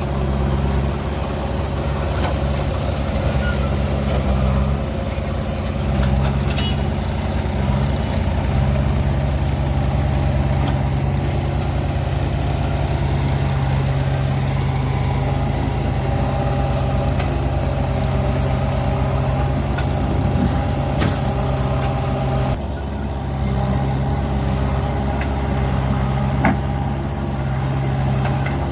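Diesel engine of a tractor or backhoe loader running steadily at a low, even speed, with a few faint knocks; the sound changes abruptly about three-quarters of the way through.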